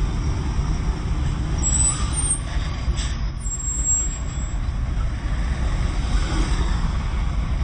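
Diesel engines of heavy trucks idling in a stopped queue, a steady low rumble.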